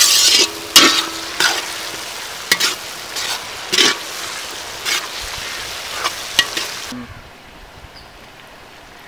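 Onions, tomatoes and green chillies sizzling in oil in a large wok, stirred with a perforated metal spatula that scrapes across the pan about once a second. About seven seconds in the frying stops and only a quiet background remains.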